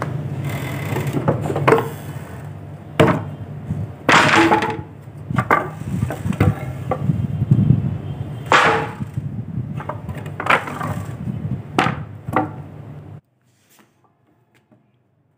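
A series of sharp wooden knocks and cracks, about eight of them at uneven intervals, over a steady low hum. The sound cuts off abruptly near the end, leaving near silence.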